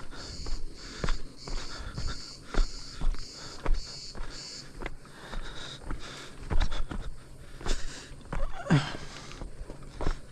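A hiker's footsteps on a rocky trail, climbing uphill, about two steps a second, with heavy breathing.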